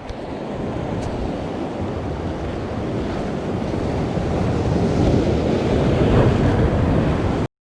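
Sea surf washing on the shore, with wind buffeting the microphone, swelling slowly and then cutting off abruptly near the end.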